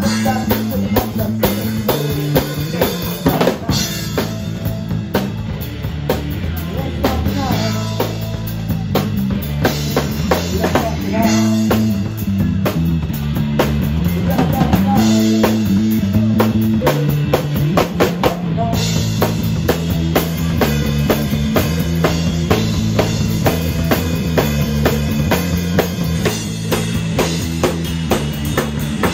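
Live rock band playing an instrumental stretch: a drum kit keeping a steady beat of kick, snare and rimshots under a five-string electric bass walking through a stepping bass line.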